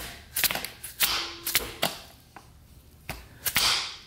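Metal tool clicking and scraping against the aluminium 4L80E valve body as a steel rod pushes the spring-loaded boost valve sleeve down into its bore. About seven sharp, irregular clicks, some trailing into a brief rasping scrape.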